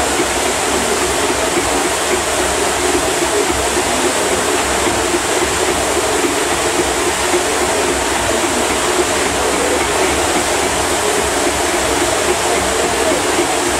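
Sugar syrup boiling hard in a large iron kadai: a steady, loud bubbling and seething.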